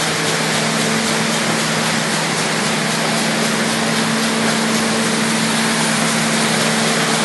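Bobst Media folder-gluer running at production speed: a loud, steady machine noise with a constant hum underneath.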